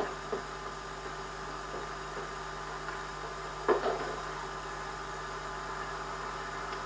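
Quiet room tone with a steady hiss and hum from the old home-video recording, broken once about halfway through by a brief, short sound.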